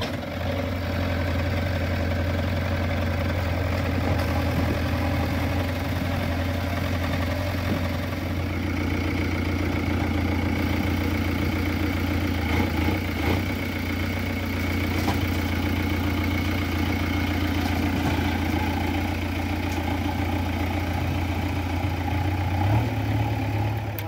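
JCB 3DX backhoe loader's diesel engine running steadily with a low, even hum, rising briefly in pitch near the end.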